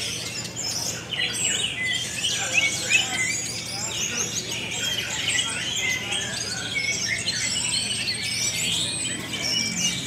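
Many caged orange-headed thrushes (anis merah) singing at once in a songbird contest: a dense, unbroken overlap of high chirps, trills and whistles.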